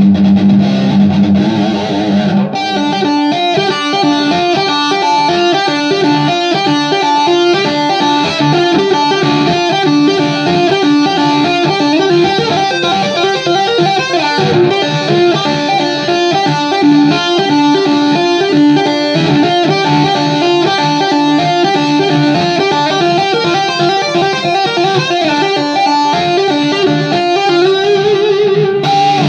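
Electric guitar played through a Vox 20-watt hybrid valve-and-digital amp on a distorted channel: a fast single-note lead. A held note rings for the first two seconds or so before quick runs of notes take over.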